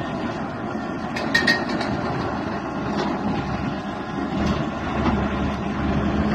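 Hyundai crawler excavator's diesel engine running under load and its steel tracks clanking as it crawls down off a lowboy trailer, with a few sharp metallic clanks about a second in and again near the middle. A steady engine note comes up about five seconds in.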